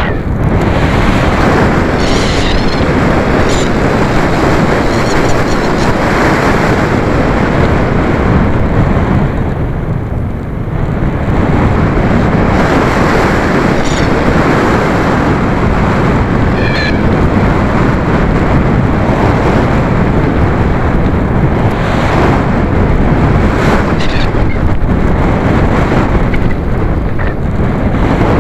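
Wind rushing over the microphone of a camera mounted under an RC glider's wing in flight: loud, steady wind noise that dips briefly about ten seconds in. A few faint short high chirps sound now and then.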